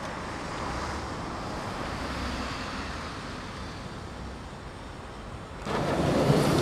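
Steady hiss of city traffic noise, growing louder and rougher near the end.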